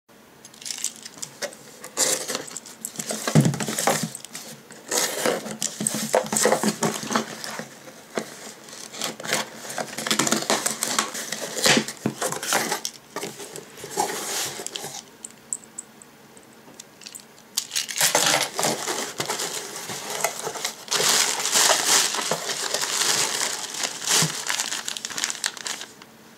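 A cardboard shipping box being opened by hand: tape tearing, flaps pulled apart and plastic packing crinkling as a bagged item is taken out. The rustles and tears come in irregular bursts, with a short lull a little past halfway.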